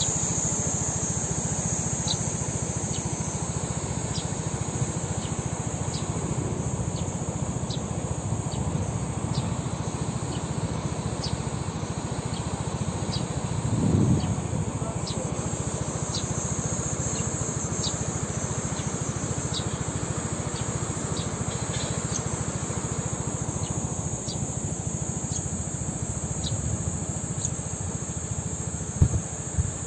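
Outdoor ambience: a steady high insect drone over a low rushing noise, with short high chirps repeating about once a second. A brief low swell comes about halfway through and two sharp thumps come near the end.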